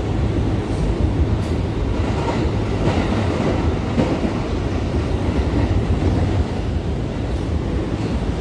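Steady low rumble of an R179 subway car's wheels on the rails at speed, heard from inside the car, with a few light clicks over the rails in the first half.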